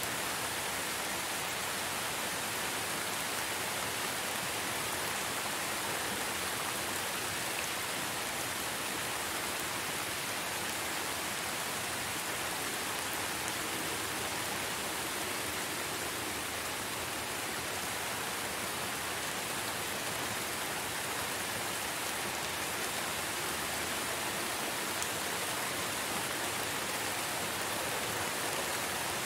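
Steady rain falling, an even, unbroken hiss with no distinct drops or pauses.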